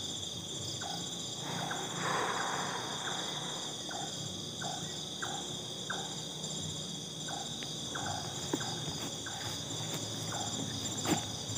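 Steady night chorus of crickets and other insects, with soft regular footsteps through grass and a brief rustle of vegetation about two seconds in.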